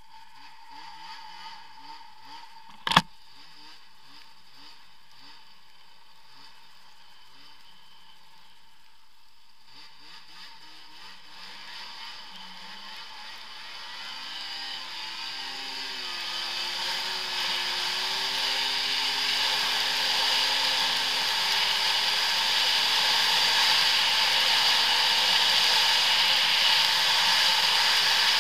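2016 Arctic Cat ZR 6000 El Tigre snowmobile's two-stroke engine, quiet at low speed at first, then accelerating from about ten seconds in with its pitch rising and a rushing noise building with speed. A single sharp knock about three seconds in.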